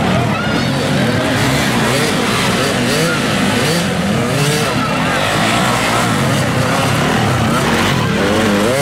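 Several motocross dirt-bike engines revving at once, their pitches rising and falling over each other without a break.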